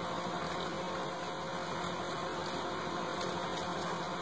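Steady room noise: an even hiss with a faint low hum underneath, unchanging throughout, with no voices.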